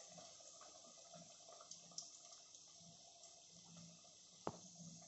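Faint sizzling and bubbling of batter-coated potato vadas deep-frying in hot oil in a kadhai, with a single sharp click about four and a half seconds in.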